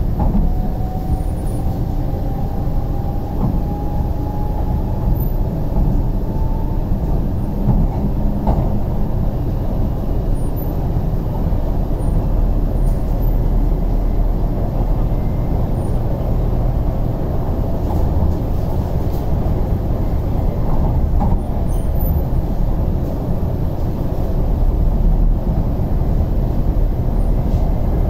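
Interior of an MTR East Rail Line R-train electric multiple unit running at speed: a steady low rumble of wheels on track and carriage noise. A faint whine rises slowly in pitch over the first several seconds.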